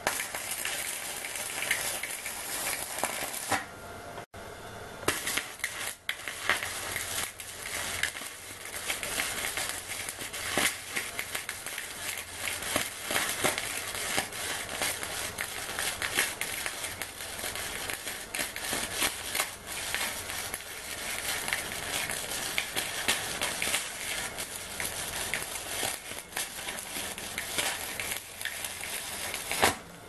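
Stick (arc) welding: the electrode's arc crackling and spitting steadily as a square steel tube is welded to a steel plate. The arc stops briefly about four seconds in, then is struck again.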